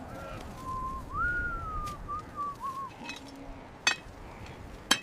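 A person whistling a short, wavering tune: one clear note that jumps up, slides down and wobbles for about three seconds. A few sharp clicks follow near the end.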